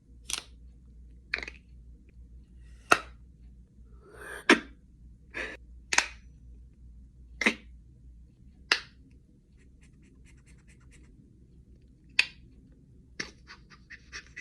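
A beatboxer's mouth making about ten short, sharp bursts of breath and mouth noise, spaced roughly a second apart with a longer pause before the last few. It is a voice-only imitation of a sound effect.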